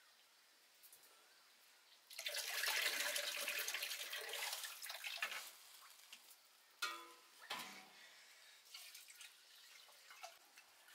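Water poured from a large aluminium water vessel into a small metal pot, a rushing splash lasting about three seconds, followed by a ringing metal clank of the vessels knocking together and a few lighter knocks.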